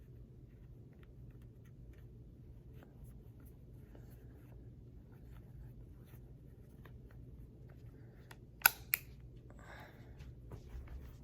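Cleaning cloth wiping a stainless revolver, faint scratchy rubbing. Two sharp clicks close together about nine seconds in, then a short rustle.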